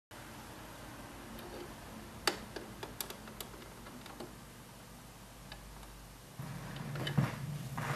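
Record surface noise from an old postcard record: a steady faint hiss with scattered sharp clicks and pops as the stylus runs in the groove. About six and a half seconds in, a louder, lower sound sets in.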